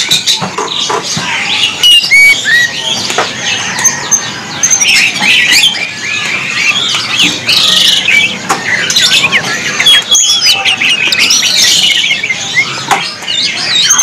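Hill blue flycatcher (tledekan gunung) singing without pause in rapid, varied high warbled phrases, stirred up by its reflection in a mirror in the cage.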